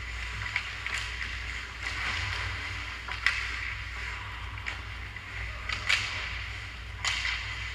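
Ice hockey play: skate blades scraping and hissing on the ice, with sharp clacks of sticks and puck, the loudest about three seconds in and again near six seconds, over a low steady hum.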